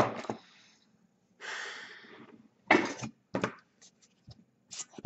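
Short puffs of air blown into a drone's brushless motor to clear out sand: a hissy puff about a second and a half in, then a louder, shorter one near the three-second mark and a brief third. A sharp click at the start and light handling clicks near the end.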